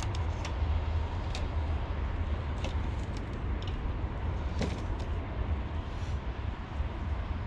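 Steady low rumble, with a few brief sharp clicks or chirps scattered through it.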